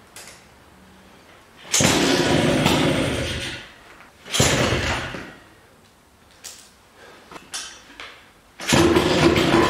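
A freshly rebuilt Vespa GS 150 single-cylinder two-stroke engine on a test stand is being kick-started. It fires twice, each time running for a second or so before dying away, with a few light clicks in between. Near the end it catches and keeps running.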